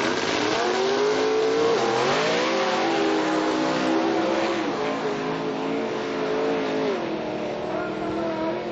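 Two drag racing cars launching off the start line and accelerating hard down the strip. The engine note climbs in pitch over the first couple of seconds, then drops twice, about five and seven seconds in, as they shift gear, and grows a little fainter near the end as they pull away.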